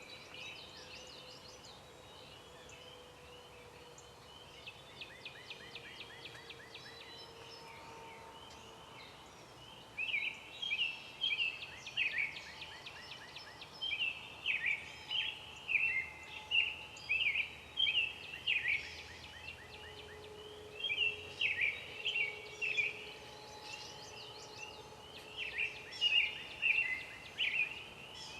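A bird calling repeatedly in short, sharp notes that come in quick clusters, louder from about ten seconds in. Before that, fainter chirps and quick trills are heard, over a faint steady low hum.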